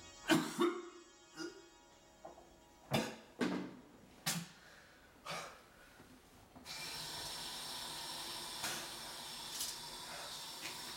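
A man coughing hard over a bathroom sink, a series of harsh coughs, then a tap turned on, with water running steadily into the basin from about seven seconds in.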